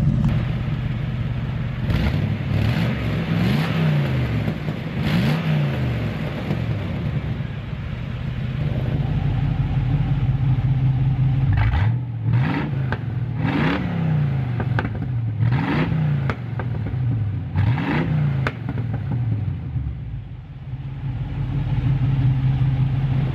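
Buick Roadmaster wagon's V8 idling, with a series of quick throttle blips, each revving up and falling back to idle, heard through an exhaust fitted with electric exhaust cutouts.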